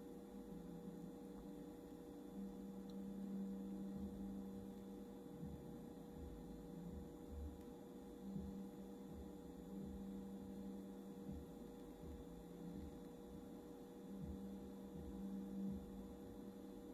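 Faint electrical hum from a Growatt solar inverter/charger: a steady whine with a lower buzz that swells and fades every few seconds.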